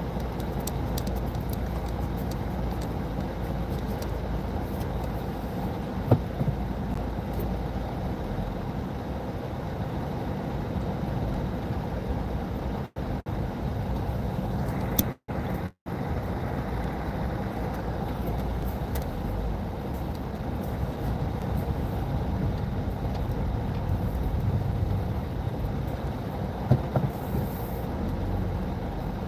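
Steady engine and road rumble heard from inside a car driving slowly, with a sharp knock about six seconds in and another near the end. The sound cuts out completely twice for a moment midway.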